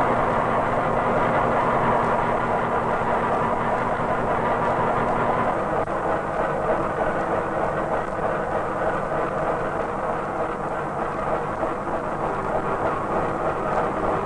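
Railway train running: a steady, continuous rumble and clatter of rolling stock on the track, with a faint steady hum in the first few seconds.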